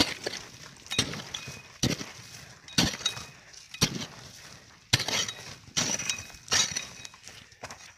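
Metal digging tool striking hard, dry earth over and over, about one sharp strike a second, breaking open the mouth of an armadillo burrow.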